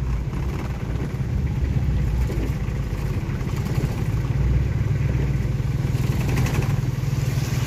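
A vehicle engine running steadily at low speed: a constant low rumble with road and air noise over it.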